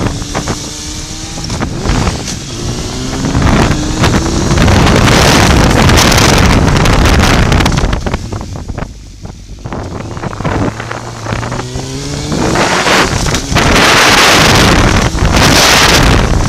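Motorcycle engine accelerating, its pitch rising through the revs in several pulls, overlaid by heavy wind buffeting on the microphone at speed. The engine eases off for a couple of seconds just past the middle, then pulls away again into loud wind rush.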